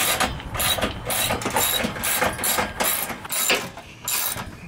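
Socket wrench ratchet clicking in repeated strokes, about two a second, while a bolt on a pickup truck's running-board bracket is being undone.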